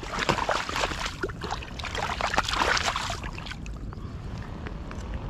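Shallow river water splashing and sloshing around a large Chinook salmon as it is handled in the shallows: a dense run of small splashes for about three seconds, then a quieter steady hiss.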